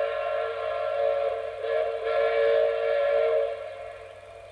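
Train whistle sounding one long blast, a steady chord of several tones that dies away about three and a half seconds in.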